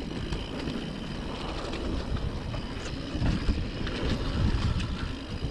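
Wind buffeting the microphone over the rumble and rattle of a mountain bike riding a dirt singletrack. Scattered clicks and knocks come from the bike and tyres, and it gets rougher and louder about three seconds in.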